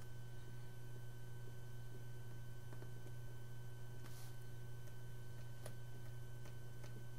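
Steady low electrical hum, with a few faint ticks of a pen writing on a tablet.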